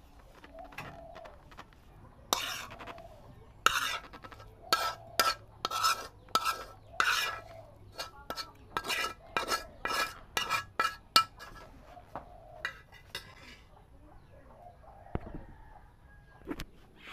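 Metal spatula scraping and knocking against a pan as cooked shrimp paste is pushed out into a bowl. It comes as a run of sharp, ringing scrapes and clinks, about two a second, starting about two seconds in and dying away about eleven seconds in.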